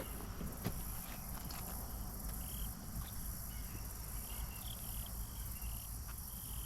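Outdoor pondside ambience: short high chirps every second or so over a steady high hiss, with a low rumble underneath.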